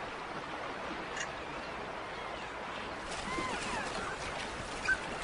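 Steady splashing and rushing of water as a herd of elk runs through a shallow river, with a few faint high calls about three seconds in.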